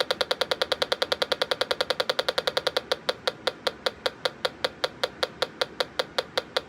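Electronic gas leak detector beeping in rapid, evenly spaced pulses while its sensitivity is being calibrated. The pulses are fast at first and slow down about three seconds in, as the reading settles.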